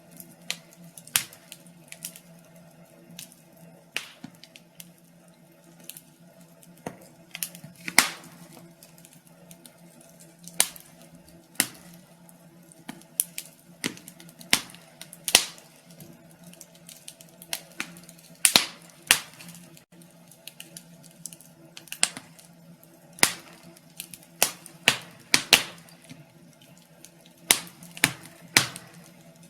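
Fireplace fire crackling: irregular sharp pops and snaps, one or two a second, some much louder than others, over a faint steady low hum.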